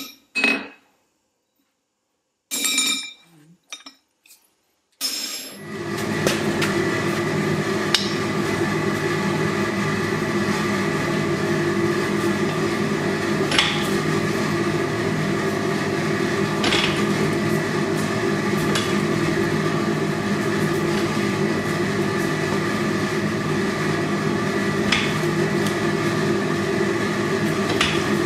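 Several hammer blows on a chisel against the anvil, ringing as the steel is struck. They give way about five seconds in to a steady hum with several held tones, broken now and then by a light metallic clink.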